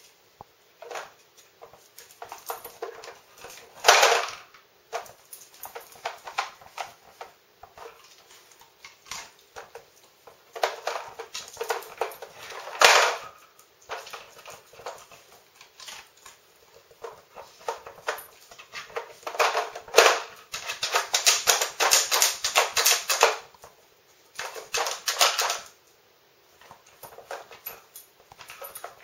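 Plastic drawers of a Nina Ottosson Dog Casino treat puzzle clacking and rattling in irregular bursts as a dog noses and paws them open. There are a few sharp knocks and a longer spell of dense rattling about two-thirds of the way through.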